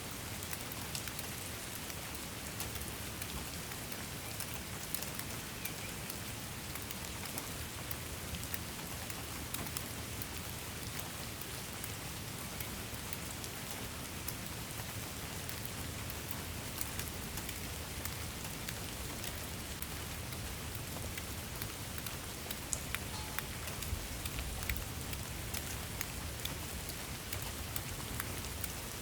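Steady rain falling, with many individual drops pattering close by.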